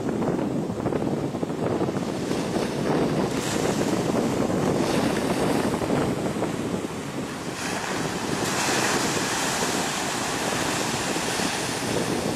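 Sea surf washing and breaking in the shallows, with wind rumbling on the microphone. A wave's hiss of foam grows louder from about seven and a half seconds in.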